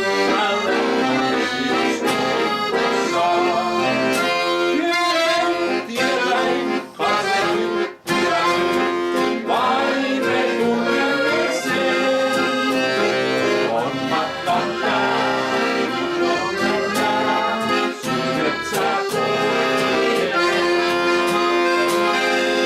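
Ballone Burini Cantus 34a accordion playing an instrumental passage of melody over held chords between sung verses, with two brief breaks about seven and eight seconds in.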